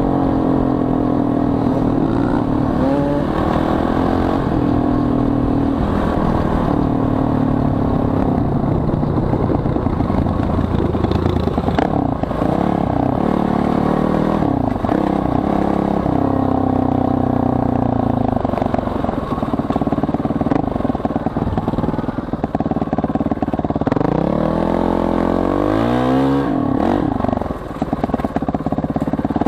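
Enduro dirt bike engine, heard close from the bike itself, revving up and down again and again as it rides a dirt trail, with a deep drop and climb in revs near the end.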